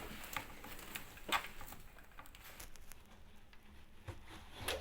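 Scattered small clicks, taps and rustles as a string looped around a stuck washing machine door is pulled to work the door's latch hook, with one sharper click about a second in.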